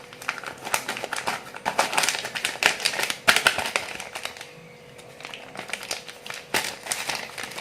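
Irregular clicking and crinkling from measuring out cinnamon powder and adding it to a mix of herbal powders. The clicks are busiest over the first four seconds, thin out, then come back with a few sharper clicks near the end.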